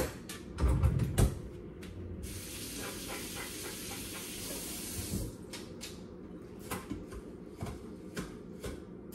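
Pot and utensil knocks, then water running in a steady hiss for about three seconds that stops abruptly, followed by light clicks, while water for the rice is measured out.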